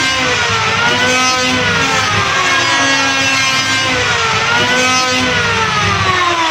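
Electric wood planer's motor running loud and whining. Its pitch sinks and climbs back up a couple of times, then falls away near the end.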